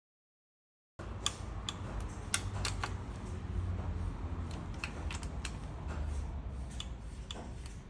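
Scattered light clicks and taps of metal parts being handled, over a low steady hum; the sound begins about a second in after total silence.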